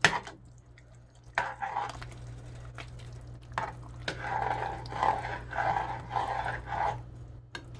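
Metal spoon stirring thick chicken and biscuit dumplings in a large metal pot: wet, squelching strokes about twice a second, with a few taps and scrapes of the spoon against the pot. The broth is thickening as it is stirred.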